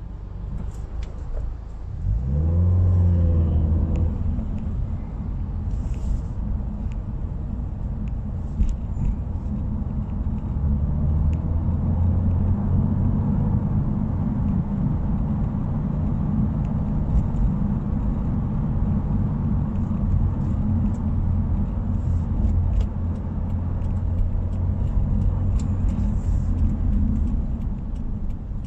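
Subaru WRX's flat-four engine and exhaust while driving: a brief rev whose pitch rises and falls about two seconds in, then a steady low drone with small rises and falls in throttle.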